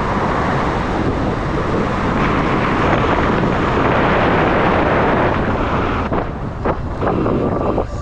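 Wind buffeting the helmet-mounted action camera's bare microphone as an electric enduro bike rides at speed. It eases about six seconds in as the bike slows, with a few light knocks.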